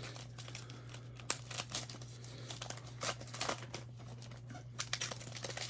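Panini Prestige football card foil pack being torn open and its wrapper crinkled, in irregular short crackles, over a steady low hum.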